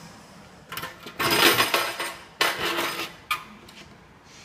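Metal parts and tools clattering and clinking as they are handled and set down, in a run of sudden bursts from about a second in to three and a half seconds in, the loudest around a second and a half in.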